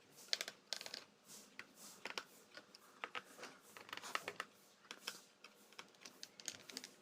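Faint, irregular clicks and taps of a screwdriver working the small screws out of a laptop's plastic base cover, with screws and tool knocking lightly against the casing.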